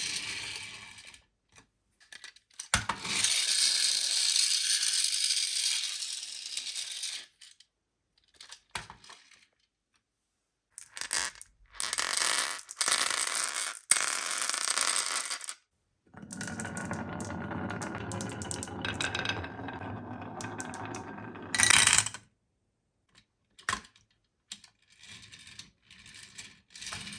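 Marbles rolling and clattering along a course of rain gutters and wooden rails, in several separate runs of a few seconds each with abrupt silent breaks between them. A sharp knock about three seconds in and another loud one near the end of the longest run.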